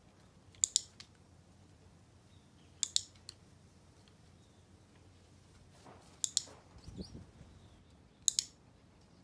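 A dog-training clicker clicked four times, each a sharp double click as it is pressed and released, marking the moments the dog holds still. A soft low knock comes between the third and fourth clicks.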